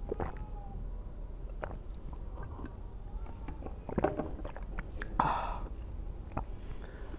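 A person chewing food close to the microphone, with small wet mouth clicks. About five seconds in there is a short, louder rush of noise.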